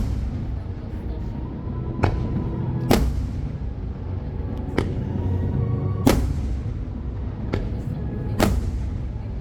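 Aerial fireworks shells bursting in sharp, echoing bangs, about seven in nine seconds at uneven spacing, over a steady low rumble.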